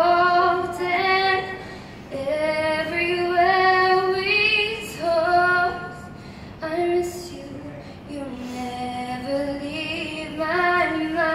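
A young woman singing solo into a handheld microphone, in phrases of long held notes with short breaths between them.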